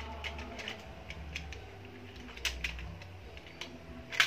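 Light plastic clicks and taps of toy construction vehicles being handled, their moving arms clicking, with a sharper click about two and a half seconds in and the loudest one near the end.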